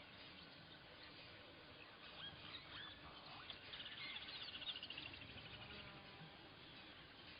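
Faint high squeaks and chirps of a small animal, with a rapid trill about halfway through.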